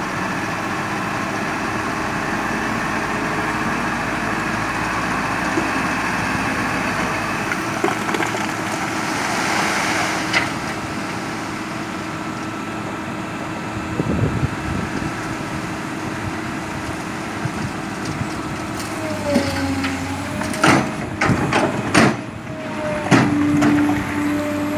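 A small diesel dump truck's engine runs steadily as its bed is tipped, with the load of rocky soil sliding out in a rushing rattle about nine to ten seconds in. Near the end come several sharp knocks and clanks.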